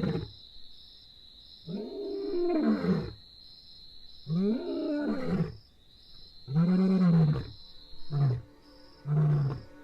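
Lion roaring: three long, rising-and-falling moaning roars, then a run of shorter, deeper grunts, the usual closing of a lion's roaring bout.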